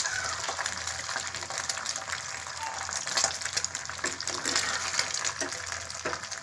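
An egg frying in oil in a pan, sizzling steadily with fine crackles.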